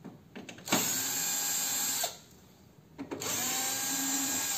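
Electric screwdriver running twice, about a second and a half each time, backing screws out of a photocopier's panels; the motor's whine rises as it spins up at the start of the second run. A few light clicks come just before the first run.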